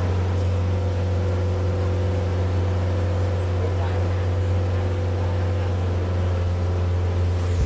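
Boat engine running steadily under way, a constant low hum that keeps the same pitch throughout.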